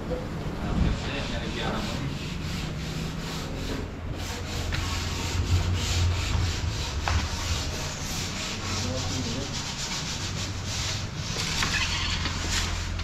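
Wood being sanded: a steady rough rubbing and scraping, with irregular sharper strokes over a continuous low hum.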